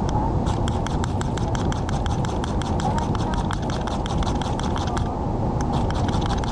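Fire steel (ferro rod) struck over and over with a striker, a quick run of sharp scraping strikes that throw sparks into wood-shaving tinder, easing off briefly about five seconds in. Under it, the steady rush of a river over rocks.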